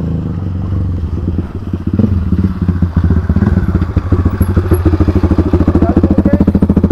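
Dirt bike engine running close by, its rapid firing pulses growing louder from about two seconds in as a bike rides up and stops alongside.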